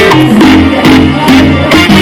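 Loud salsa dance music with a steady bass line and a driving beat.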